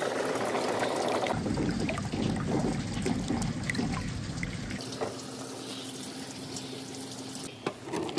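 Water running down a rain-gutter marble run and pouring into a tub, with glass marbles ticking lightly as they roll in it. About five seconds in the rush drops to a quieter level, with only a few light clicks.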